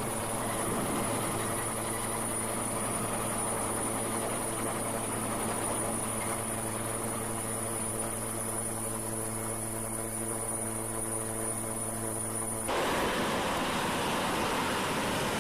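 Jet engine of an F-35B fighter running: a steady high whine over a low hum. About 13 seconds in it cuts abruptly to a louder, even rushing noise.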